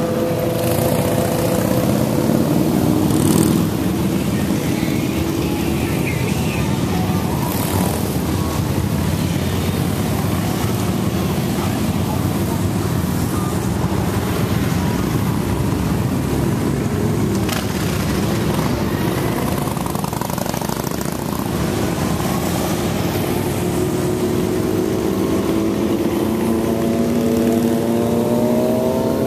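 A procession of motorcycles, mostly cruisers, riding past one after another with a steady rumble of engines. Near the end an engine's pitch rises as a bike accelerates past.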